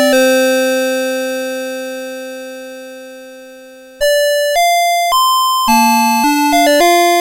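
Electronic melody chip of a CITIZEN Melody Box 30 alarm clock playing: one tune ends on a long held chord that fades away over about four seconds, then the next tune starts with a few single notes and goes into a quick chorded melody.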